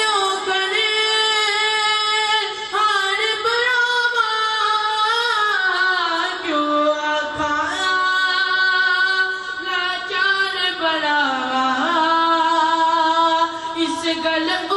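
A single voice singing a devotional naat in long, drawn-out held notes that slide slowly down and back up, with no instruments heard.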